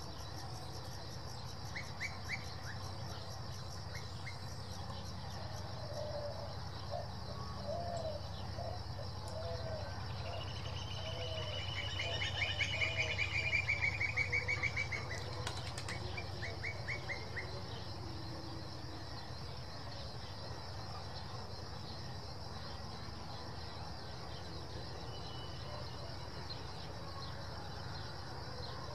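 Birds calling over a steady high insect drone. A bird gives a run of low repeated notes, then a rapid trilling song builds up and fades out around the middle. A low, steady rumble from a distant freight train of boxcars rolling past lies underneath.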